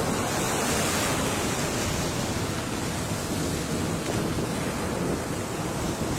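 Ocean surf: a steady rush of breaking waves washing in, a little louder in the first second or two.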